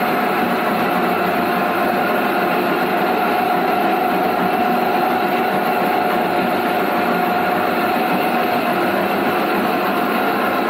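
Motor-driven coffee cherry pulper running steadily, a constant machine hum with one steady tone through it.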